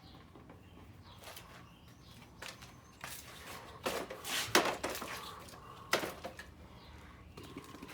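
Scattered knocks and scrapes, loudest in a cluster a little past halfway, with a sharp click about six seconds in.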